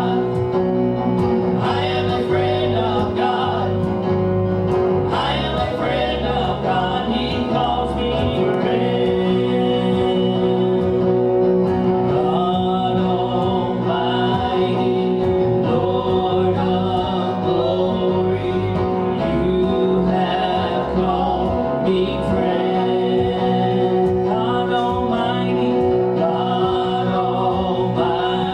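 Gospel music with singing voices over sustained instrumental chords.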